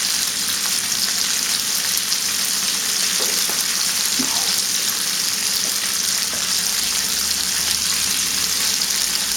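Chicken legs frying in oil in a stainless steel pan: a steady sizzle with fine crackling.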